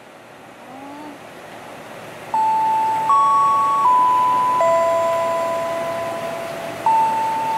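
Railway station loudspeaker chime: an electronic melody of clear, sustained bell-like tones at changing pitches, starting about two seconds in. It is the jingle played over the platform PA with train announcements.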